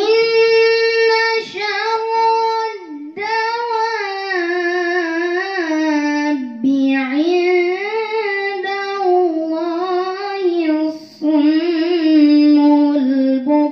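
Quran recitation in the melodic tilawah style by a single high voice: long held notes with wavering ornaments and slow rises and falls in pitch, broken by short breaths about 3 and 11 seconds in.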